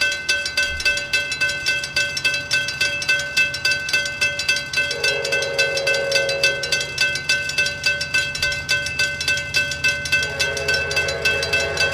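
Railroad grade-crossing warning bells ringing in a fast, even rhythm. The horn of an approaching Amtrak F59PHI locomotive sounds two long blasts, about five seconds in and again near the end.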